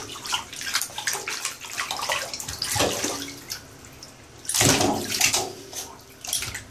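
A Pembroke Welsh corgi puppy splashing and wading through shallow bathwater in a tub, in irregular splashes, the biggest about four and a half seconds in.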